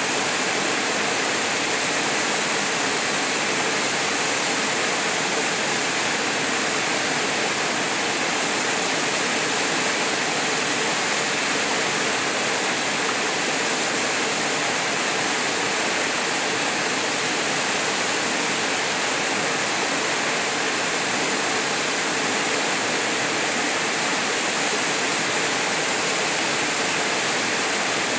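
Small waterfall pouring into a rock pool: a steady, even rush of falling water that does not change.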